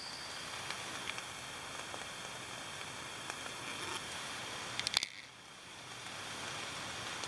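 Steady faint hiss of night-time outdoor background with a faint high insect trill running through it, and a few quick clicks about five seconds in.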